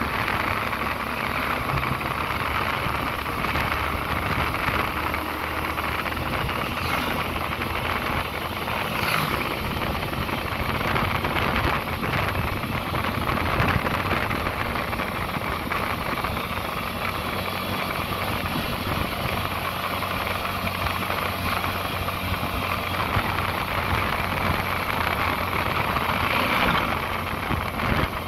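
Steady engine and road noise from a vehicle driving along a road.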